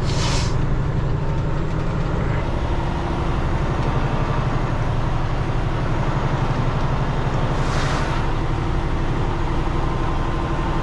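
Peterbilt semi-truck's diesel engine running steadily, heard from inside the cab, with two short hisses, one at the start and one about eight seconds later.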